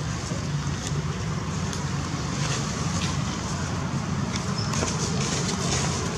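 Steady low rumble of distant motor traffic, with a few faint ticks over it.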